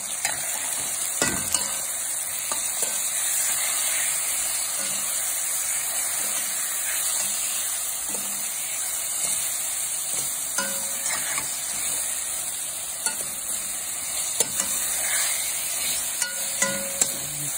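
Onion, tomato, ginger-garlic paste and spices sizzling in hot oil in a stainless steel pan as a spatula stirs them, the masala being fried down. A steady hiss with scattered sharp knocks and scrapes of the spatula against the pan.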